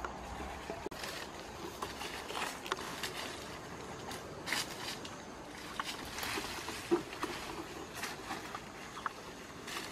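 Rustling and crackling of leafy branches and dry leaf litter being handled, with scattered small snaps and clicks at irregular moments.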